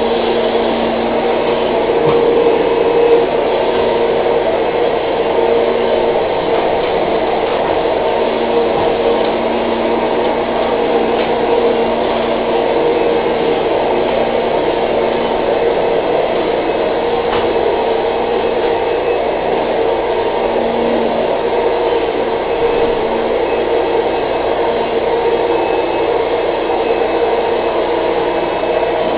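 Vacuum cleaner running steadily, its motor a constant hum over the rushing of air.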